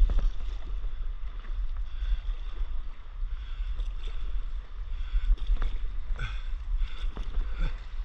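Stand-up paddle strokes splashing and dripping in calm sea water beside the board, over a heavy, uneven wind rumble on the camera microphone.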